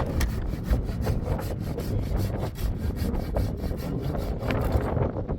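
Rapid, repeated scraping strokes on wood, like a hand saw or rasp.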